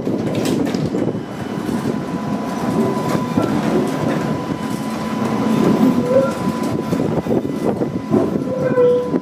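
Older open-windowed electric streetcar rolling along its track: a steady rumble and clatter of the car and wheels on the rails, with a thin steady whine through it and a few short squeaks near the end. Wind from the open windows blows on the microphone.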